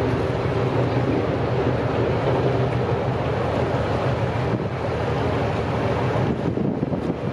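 Vaporetto water bus running steadily under way, its engine giving a low, even hum over the churning of water in its wake. Near the end the engine hum fades back and water and wind noise grow rougher.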